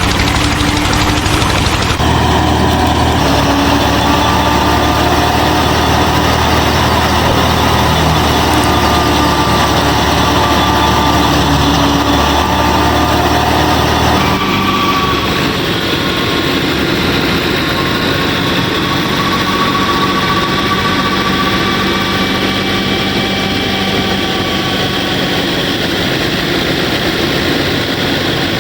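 A DIY miniature combine harvester's motor running steadily as a continuous mechanical drone. Its tone changes abruptly about two seconds in and again about halfway through.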